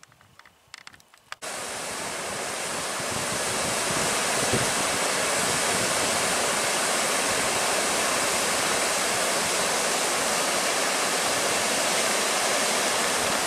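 Waterfall pouring over a wide rock ledge into a river pool: a steady, even rushing of falling water. It starts abruptly about a second and a half in, after a few faint clicks.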